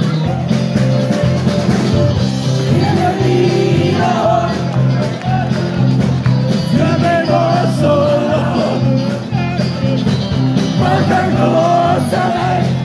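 Live band playing amplified music over a PA, with a singer's voice wavering over strong bass. The music runs steadily and loudly.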